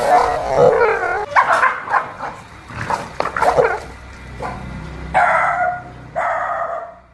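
Dog barking and snarling in rapid, overlapping bursts, then two longer drawn-out cries about five and six seconds in.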